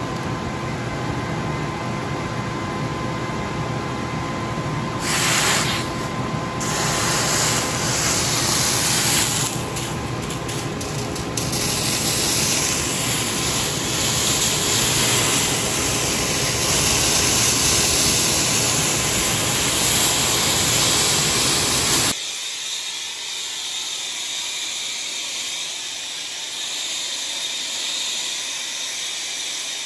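Torch flame hissing steadily while heating a 3-inch copper pipe joint for soldering; about two thirds of the way through it drops abruptly to a quieter, thinner hiss.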